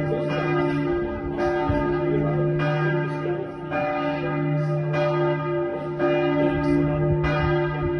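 Church bell tolling, struck about once a second with a long ring sustaining between strokes.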